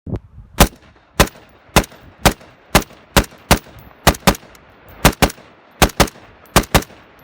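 Desert Tech MDR bullpup semi-automatic rifle in 5.56 NATO fired rapidly, about fifteen shots at roughly two a second, some as quick doubles, each crack followed by a short echo.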